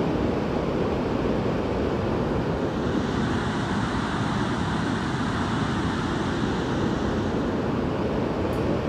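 Fast mountain river rushing over rocks: a steady, dense rush of whitewater.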